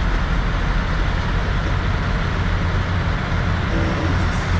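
Semi-truck's diesel engine running with a steady low drone that does not change.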